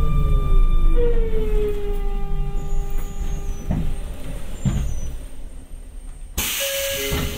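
Sagami Railway 8000 series electric train's inverter motor whine falling in pitch as the train slows, over a low running rumble. Near the end comes a sudden loud hiss of air.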